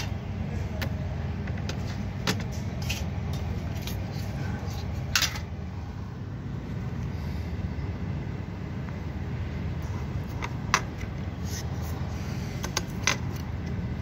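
A handful of sharp clicks and light knocks from a plastic instrument housing and its circuit board being handled, the loudest about five seconds in, over a steady low hum.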